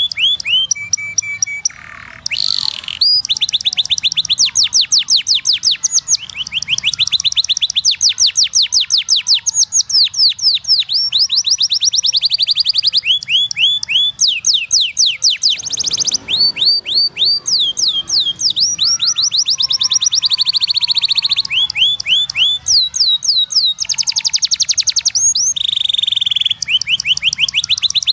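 Domestic canary singing a long, continuous song of rapid trills: each trill a quick run of falling whistled notes, about ten a second, switching to a new trill every second or two with brief breaks between.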